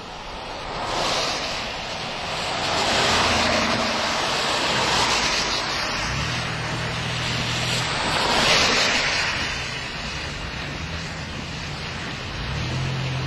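Gusty wind rushing across the microphone, swelling and easing in several waves, with a low steady engine hum coming in about halfway through.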